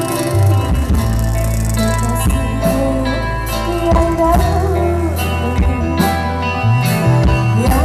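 Live dangdut band music: an electric guitar melody over bass, keyboard and a steady drum beat, played loud through the stage PA.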